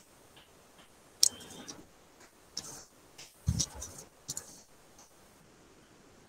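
A few scattered clicks at a computer while a screen share is being set up, with a dull knock about three and a half seconds in.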